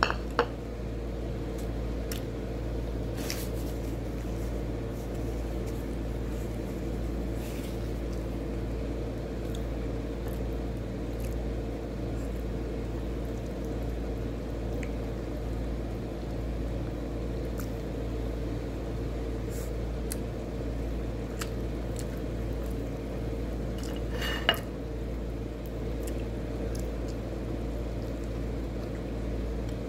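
Close-up eating sounds: soft, wet chewing and mouth noises as chicken is eaten by hand, with a few faint clicks and one sharper click or smack about 24 seconds in. A steady background hum with a constant tone runs under it.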